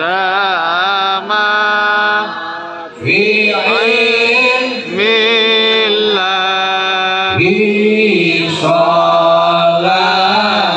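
Sholawat, Arabic devotional praise of the Prophet, chanted by a voice over a public-address sound system: long, wavering, ornamented phrases with brief breaks between them.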